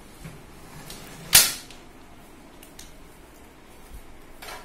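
A single loud, sharp metal click about a second and a half in, as a folding camping table's telescoping leg is pulled out and its locking bolt snaps into place. A fainter short scrape follows near the end.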